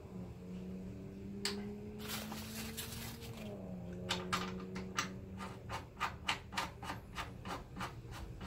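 Hands unhooking the tension spring and unscrewing its mount on an Orion XT8 Dobsonian telescope: a click and a rubbing scrape, then a run of light clicks about three a second, over a faint low steady hum.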